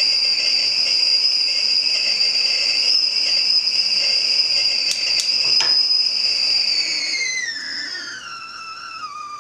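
Glass stovetop whistling kettle whistling at the boil: a steady high whistle with a second, lower tone beneath it, over the sound of the water boiling. A few sharp clicks come about five seconds in, and from about seven seconds the whistle slides down in pitch and fades.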